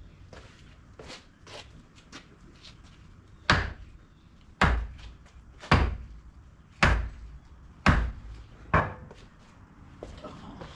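Six heavy knocks about a second apart, after a few seconds of lighter clicks and handling noise.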